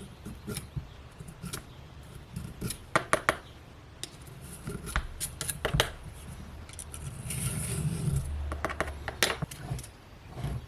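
Hand work on a chainsaw: a series of sharp metallic clicks and knocks, with a scraping rub about seven to eight and a half seconds in.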